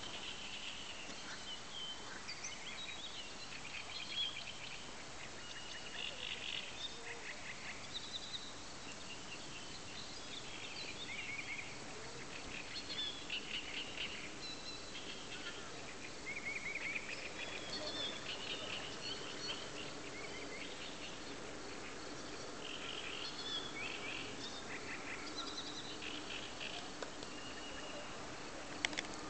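Birds calling and singing without pause, in short chattering phrases of high notes, with a faint low hum underneath in the second half.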